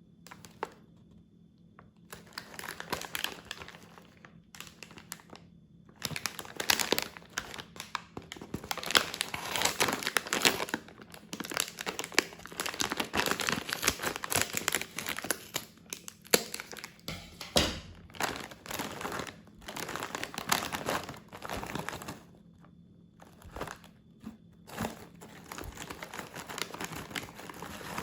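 Plastic snack wrapper crinkling as it is handled and opened, in spells of crackling with short pauses.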